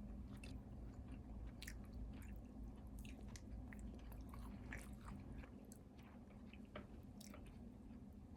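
Person chewing food close to the microphone: faint, irregular soft clicks and crunches from the mouth, over a steady low hum.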